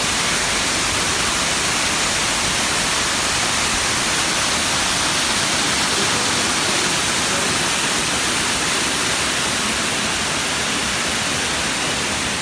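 Cascading waterfall and rapids rushing close by: a steady, even hiss of water.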